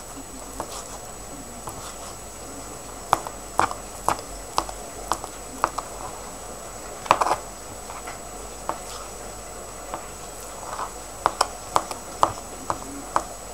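Kitchen knife dicing mozzarella on a plastic cutting board: irregular sharp taps of the blade hitting the board, few at first, then in quicker runs from about three seconds in.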